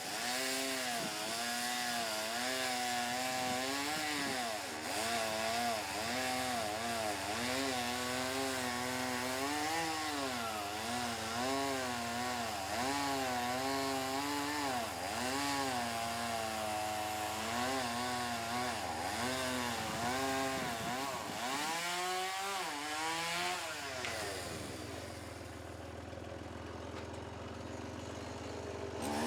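Chainsaw running through wood, its engine pitch repeatedly dipping and recovering as the chain loads up in the cut. It eases off for a few seconds near the end, then revs up again.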